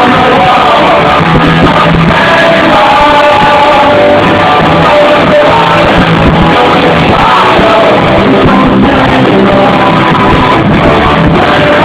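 Live punk rockabilly band playing loud, with electric guitar, upright double bass, drums and singing, and the crowd shouting along. It is recorded close to full scale on a phone's microphone, so it sounds muffled and heavily compressed.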